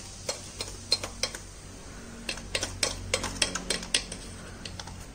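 A metal spoon clinking and scraping against a stainless steel bowl: irregular taps, quickest about two to four seconds in, as the spoon scoops from the bowl.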